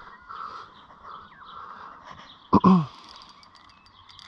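A man's short sigh falling in pitch, about two and a half seconds in, over a faint outdoor background.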